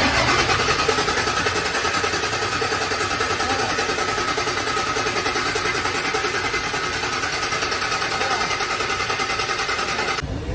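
Six-cylinder truck diesel engine idling steadily with a fast, even clatter, cutting off suddenly near the end.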